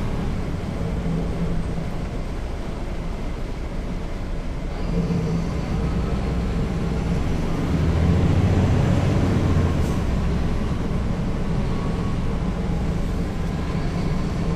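Caterpillar C13 ACERT inline-six diesel engine of a NABI 40-foot transit bus, heard from the rear seats as the bus runs. The engine note grows louder about five seconds in, is loudest around eight to ten seconds, then eases off a little.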